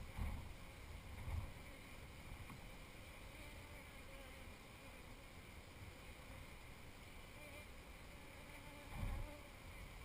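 Honeybees humming faintly and steadily over an open hive, with a few low bumps on the microphone near the start and again near the end.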